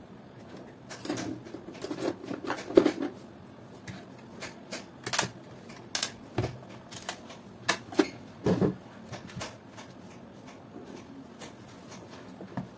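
Plastic housing and internal parts of an opened hand mixer being handled: an uneven series of clicks, knocks and light rattles from about one second in, dying away after about nine and a half seconds.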